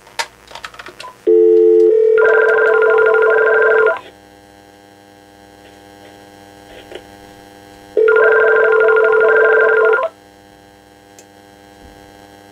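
Vtech 6773 cordless phone sounding a telephone tone over its speaker: a few button clicks and a short beep, then a steady two-second tone that repeats about four seconds later, in the on-off rhythm of a ringback tone. A low electrical hum runs between the tones.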